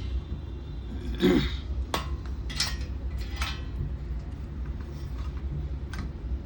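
About five light clinks and taps of small tools and parts being handled on a repair bench, the first the loudest, over a steady low rumble.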